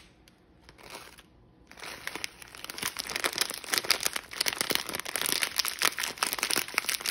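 A clear plastic bag of crumb topping crinkling as it is squeezed and shaken out over a pie. It is faint at first, then from about two seconds in becomes a dense, continuous crackle.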